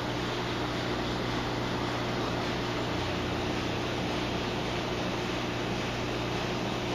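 Steady machine hum with an even hiss over it, unchanging and with no distinct knocks or clicks.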